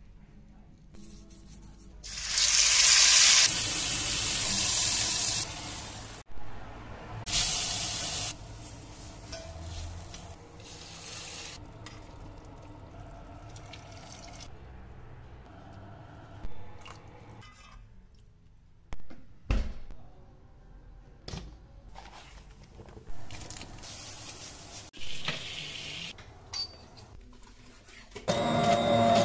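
A run of short kitchen sounds from braising a roast. Liquid is poured and splashes into a pot, with loud hissing for a few seconds early in the run and shorter bursts of handling noise later.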